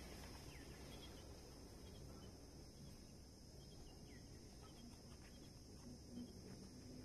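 Near silence: faint steady outdoor background noise with a few faint short chirps.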